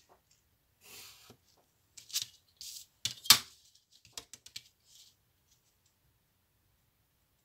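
Red cardstock sheets and a clear plastic ruler being slid and repositioned on a craft mat. Short paper rustles and slides are broken by a few sharp clacks, the loudest about three seconds in.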